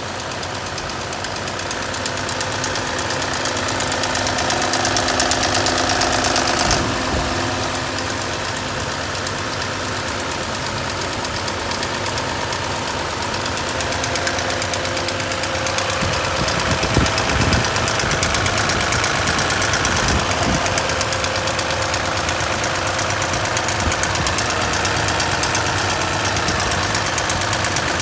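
Car engine running with a fast, steady ticking from the valve train: the noise of excessive valve lash. It gets louder twice, as if the engine is briefly revved.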